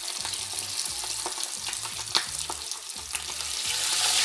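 Pork mesentery pieces (chicharong bulaklak) deep-frying in hot oil in a pan: a steady sizzle with scattered crackling pops, one louder pop about two seconds in. The sizzle grows much louder near the end as more pieces go into the oil.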